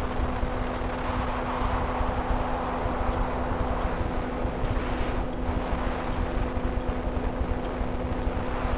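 Microlight trike's engine running steadily in cruise flight, a constant-pitch hum, under heavy rushing wind noise on the microphone in the open cockpit.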